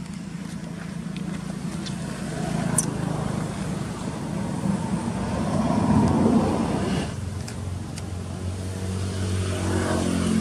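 Motor vehicle engines passing close by: a steady engine hum, one vehicle growing louder to a peak about six seconds in and dropping away about a second later, then another engine's hum coming up near the end.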